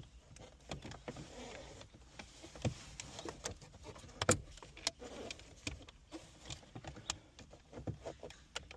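Plastic dashboard trim being handled and fitted back into place: scattered clicks, taps and light rubbing, with the sharpest click a little over four seconds in.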